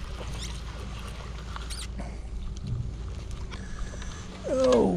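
Spinning reel being cranked as a small channel catfish is reeled in, splashing at the surface, with faint clicks and squeaks through a steady low rumble. A short vocal exclamation comes near the end.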